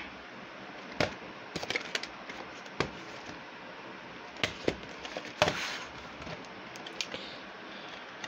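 VHS tapes being handled: scattered short clicks and clacks as the tapes and their cases are picked up and moved, with a brief rustle about five and a half seconds in.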